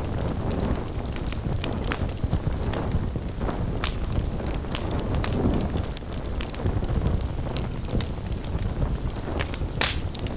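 Fire burning: a steady low rumble of flames with scattered, irregular crackles and pops, a sharper one near the end.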